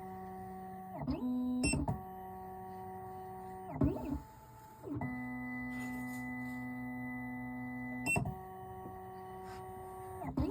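Computerised key-cutting machine running a cut: its motors whine in steady tones that jump to a new pitch every one to three seconds, with a short sweep and click at each change, as the carriage steps the key blank from one cut depth to the next.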